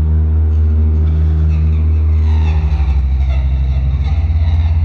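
Live ambient electronic music: a loud, deep bass drone with sustained tones above it. About halfway through, the low drone starts pulsing rapidly and grainy higher textures come in.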